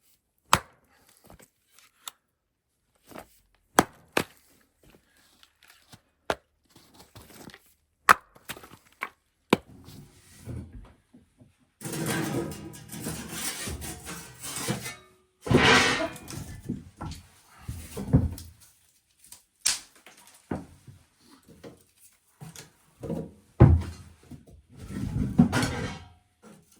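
Chopping at something hard with sharp, single knocking blows every second or two. Stretches of scraping and rustling come in between, and another loud knock falls near the end.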